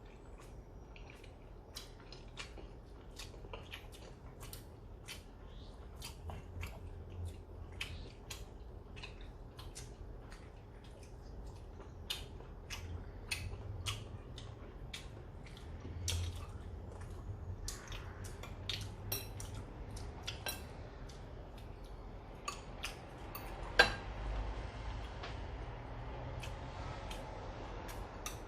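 Chopsticks and spoons clicking and clinking against bowls and plates during a meal, many small taps throughout, with one sharper clink about three-quarters of the way through.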